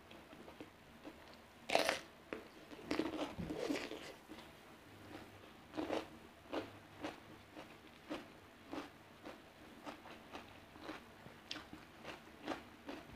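Close-up mouth sounds of a person eating: a loud crunchy bite into raw cucumber about two seconds in, then steady crunchy chewing at roughly two chews a second.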